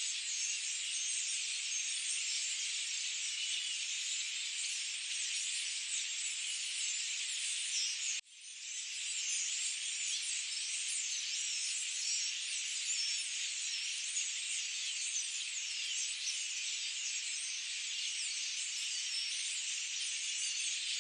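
Dense forest bird chorus: many overlapping high chirps and trills running on steadily. About eight seconds in it cuts out for an instant and fades back up.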